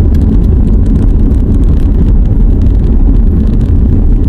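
A car driving on a paved mountain road, heard from inside the cabin: a loud, steady low rumble of road and engine noise.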